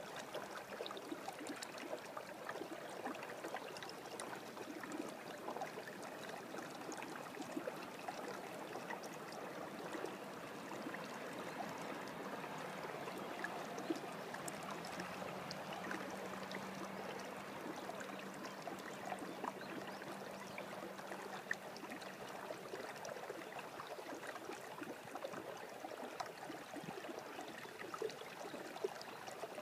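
Shallow water trickling steadily through a flooded rice paddy, an even rushing hiss dotted with small ticks and drips. A faint low hum joins in about halfway through and lasts several seconds.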